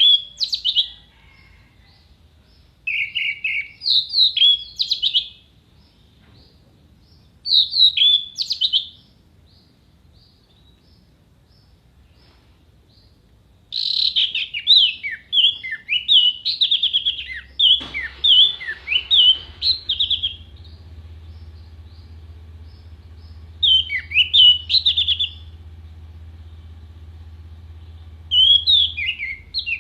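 Orange-headed thrush singing in separate bursts of rapid, sharp whistled notes that sweep up and down in pitch, with pauses of a few seconds between bursts and one longer unbroken run of song about halfway through. A faint low hum starts just after the middle.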